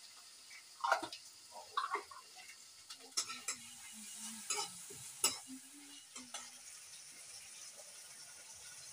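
Steel ladle and lids clinking and scraping against steel cooking pots, a string of sharp knocks over a few seconds, over a steady sizzling hiss.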